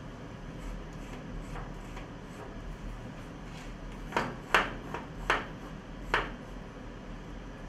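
A magnetic base drill being handled by hand: a few light clicks, then four sharp knocks between about four and six seconds in, over a low steady hum. The drill motor is not running.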